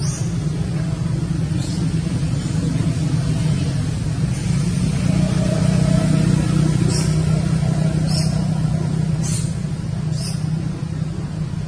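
A steady low engine-like hum runs throughout. Short high-pitched squeaks come about once a second in the second half.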